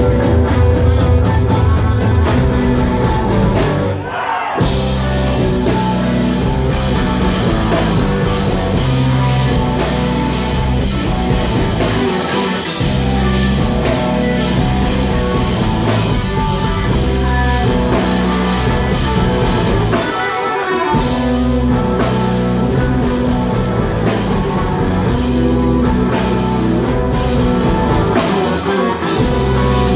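Live instrumental math rock band playing loud: electric guitars, bass and drum kit, joined by a string quartet. The bass and drums drop out briefly about every eight seconds.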